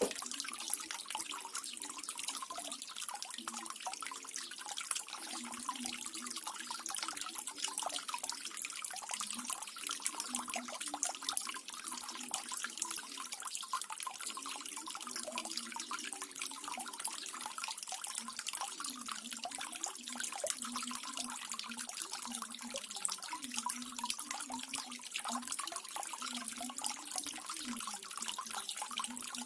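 Small decorative waterfall water feature: water running and splashing steadily, with a low wavering gurgle under the trickle.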